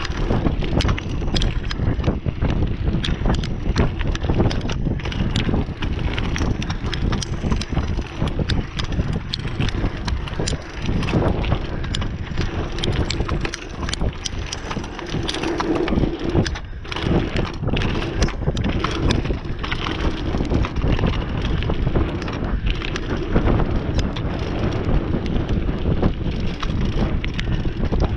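Mountain bike ridden at speed down a dirt trail: tyres crunching over the surface, the bike rattling with many sharp clicks, and wind buffeting the microphone.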